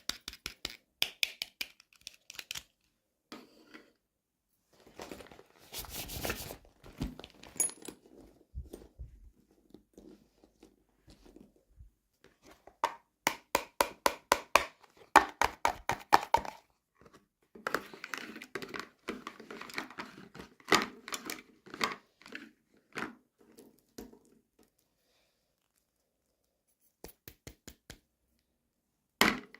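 Toy packaging being handled and opened by hand: plastic and cardboard crinkling and tearing, with dense runs of small clicks and taps and a short pause near the end.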